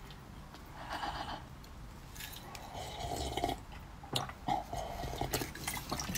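Faint handling sounds of an ice bowl: soft rustles and scrapes of hands on the ice, with a few sharp clicks.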